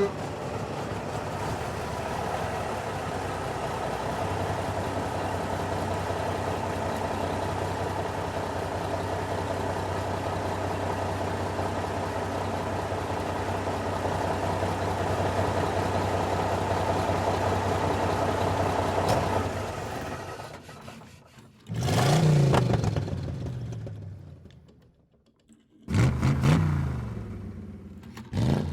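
A car engine running steadily for about twenty seconds, then fading away. Near the end it revs up and down in short loud bursts, several times.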